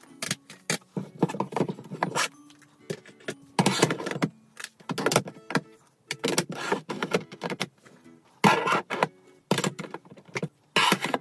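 Makeup palettes being handled and set into a drawer: irregular clacks as the palettes knock against each other and the drawer bottom, with scraping slides as they are pushed into place. The loudest clatters come about four, eight and a half, and eleven seconds in.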